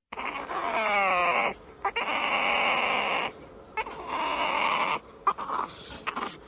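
A dog vocalizing in three long drawn-out calls, the first wavering up and down in pitch.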